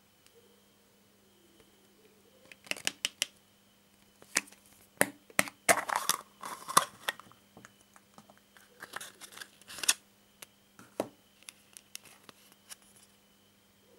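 A red plastic surprise-egg capsule handled and pulled apart by hand: a quick run of sharp plastic clicks, then a loud spell of clicks and crinkling as the halves part and the toy and folded card come out, followed by scattered taps and rustles.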